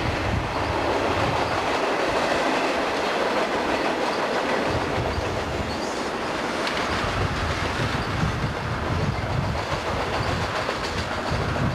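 Union Pacific freight train's cars rolling past: a steady rumble of steel wheels on rail, with the wheels clacking over the rail joints.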